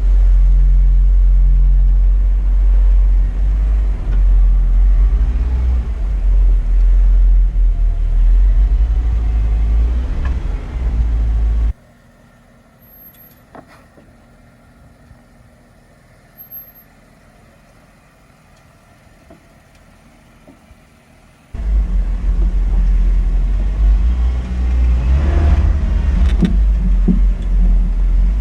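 Rented Jeep driving slowly in four-wheel-drive low: a loud low rumble. About 12 seconds in it cuts off suddenly to a quiet stretch with a few faint clicks, then the rumble returns about ten seconds later.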